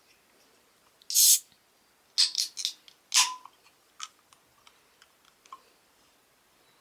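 Small hard objects being handled: a short scrape about a second in, a quick cluster of clicks and taps, a second scrape with a brief ring, then a few lighter ticks.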